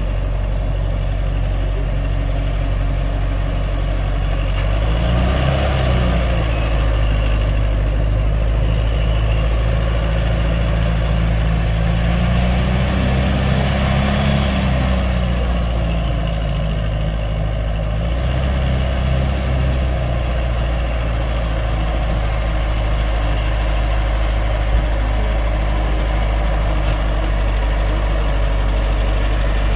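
Diesel engine of a heavy earthmoving machine running steadily, revving up under load about five seconds in, again for a few seconds around the middle, and once more a few seconds later.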